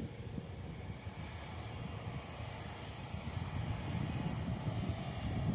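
Loganair regional jet's twin rear-mounted turbofan engines running as it waits lined up for take-off, a steady low rumble that grows somewhat louder toward the end.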